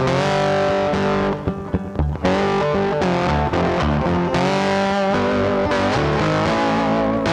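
Background music led by a distorted electric guitar, with a brief drop a little over a second in.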